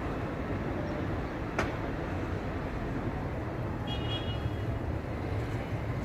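Steady city street noise with a low traffic rumble. A single sharp click comes about one and a half seconds in, and a brief high-pitched squeal about four seconds in.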